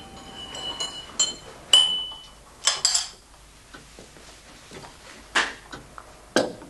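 China cup and saucer and glass jelly jars clinking and knocking on a table: a string of sharp clinks, a few with a short ringing note, the loudest about two seconds in.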